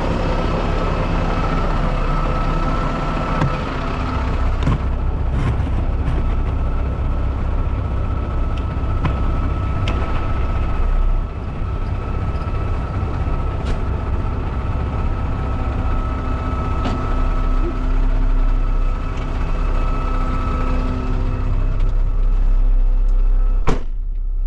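Concrete mixer truck's diesel engine running steadily, with a few sharp clicks or knocks over it.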